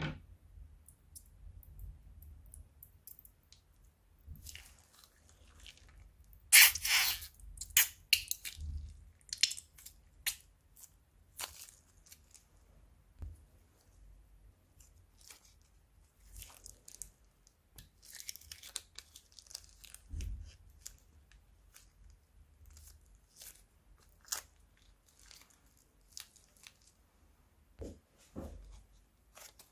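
Slime being squeezed and pressed by hand, giving scattered crackles and crunches, with a louder run of crackling about seven seconds in.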